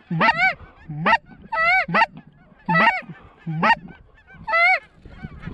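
Geese honking: about ten loud, short honks, several in quick pairs, each breaking from a low note up to a higher one.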